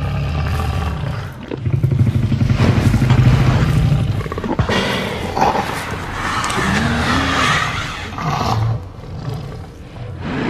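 Tyrannosaurus rex roar sound effects playing one after another. A long, loud, low roar comes first, then more roaring with pitch that slides up and down, then a short final roar near the end.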